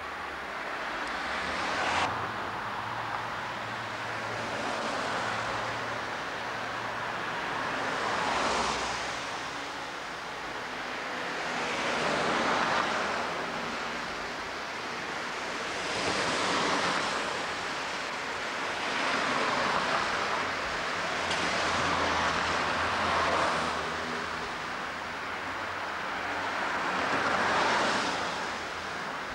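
Road traffic passing one vehicle after another, each swelling and fading as it goes by, about every three to four seconds.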